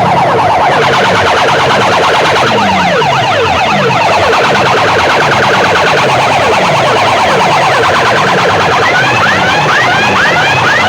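Loud electronic siren and alarm-style sound effects blasting from DJ competition loudspeaker systems, with many fast sweeping tones piled over one another. A short rising whoop, repeating several times a second, takes over near the end.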